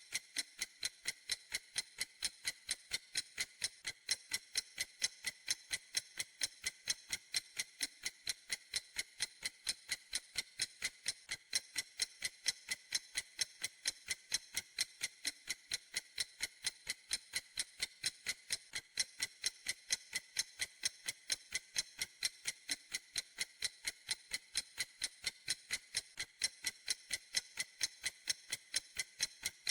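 Clock ticking steadily: sharp, high, evenly spaced ticks, a few a second, unchanging in rhythm.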